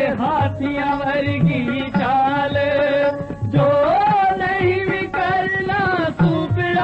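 Punjabi devotional folk song: a singer's voice in wavering, ornamented melody lines over a hand-drum beat.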